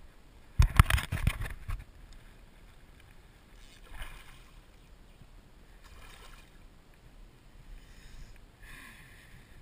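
A small pike thrashing and splashing at the water's surface while being played on an ultralight rod. The loudest burst of splashing comes about a second in, followed by smaller splashes a few seconds apart.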